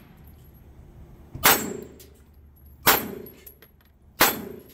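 Three 9mm pistol shots about a second and a half apart, each followed by the ringing clang of a steel dueling-tree paddle being hit and swung over.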